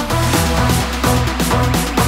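Electronic dance music with a steady pulsing bass beat.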